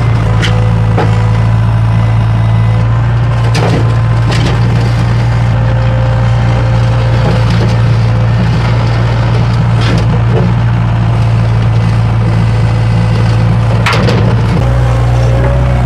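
Skid steer engine running steadily under work, with sharp knocks and scrapes of broken concrete pieces in the bucket. The engine note changes near the end.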